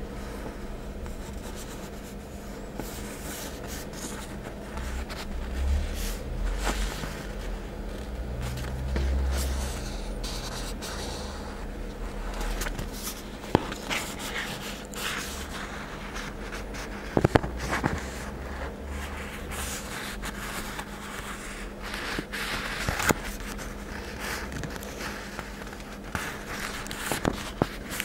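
A sheet of stickers handled close to the microphone: fingers scraping and rubbing over the paper, with a few sharp clicks and taps, over a faint steady hum.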